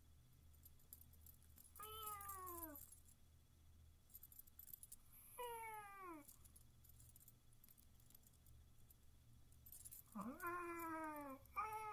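A cat meowing four times, each meow sliding down in pitch, the last two close together near the end. Faint high jingling runs under it.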